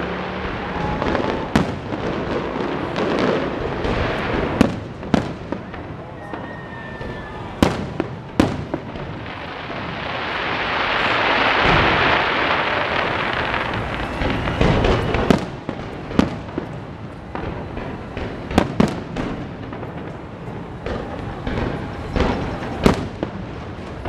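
Aerial fireworks shells bursting overhead in an irregular series of sharp booms, over a constant rumble of the show. For a few seconds midway a hissing swell rises and fades.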